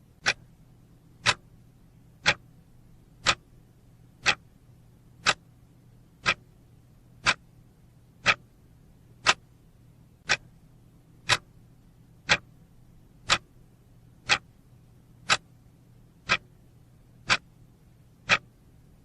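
Clock-tick sound effect marking each second of a countdown: one sharp tick a second, evenly spaced, over a faint low hum.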